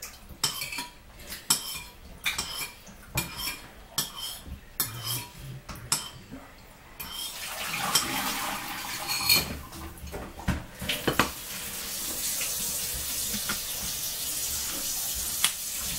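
Metal spoon stirring lemon sauce in a bowl, clinking against the bowl about twice a second. From about halfway a steady hiss of running tap water takes over, with a few more clinks.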